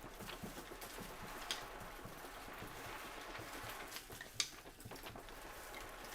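Live foley sound effects: irregular light pattering and taps over a steady hiss, with two sharper clicks, about one and a half and four and a half seconds in.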